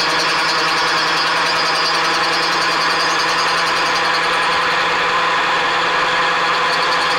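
Milling machine taking a surfacing cut with a fly cutter across the worn vice ways of a power hacksaw's main body, the table under feed: a steady cutting noise over a constant motor hum.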